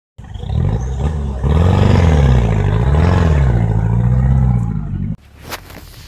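Vehicle engine revving, its pitch rising and falling twice, then cut off abruptly about five seconds in. Quieter scattered clicks follow.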